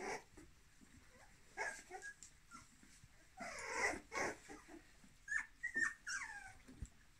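Young puppies whimpering and yipping as they wrestle together, with a cluster of short cries around the middle and several short yelps falling in pitch near the end.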